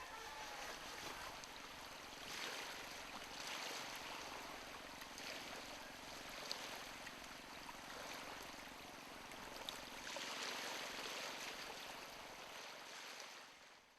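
Small sea waves washing on a beach, the rush swelling and easing every second or two, over a faint steady low hum; it fades out at the very end.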